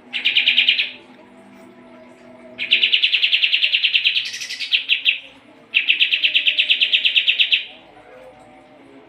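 Kapas tembak songbird singing in three bursts of rapid trills, each a fast run of repeated high notes; the middle burst is the longest, at about two and a half seconds.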